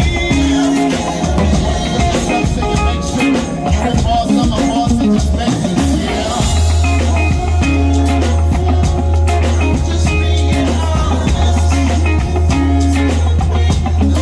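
A live band playing, heard close to the drum kit, with the drum strikes standing out. A deep bass note sets in about halfway through and holds steadily.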